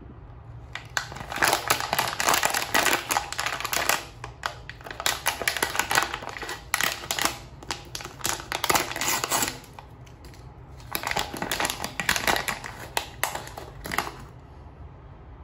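Plastic foil blind-box pouch crinkling loudly as it is handled and pulled open, in two long stretches with a short pause about two-thirds of the way through.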